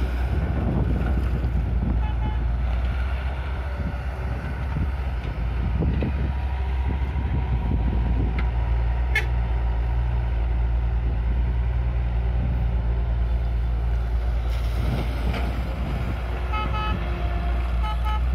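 Diesel engines of a working excavator and a dump truck running with a steady low rumble. A brief high whistle sounds about nine seconds in, and a few short toots come near the end.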